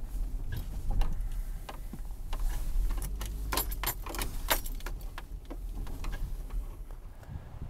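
Van engine idling with a low rumble that drops away near the end, and keys jangling with a run of sharp clicks over the middle few seconds.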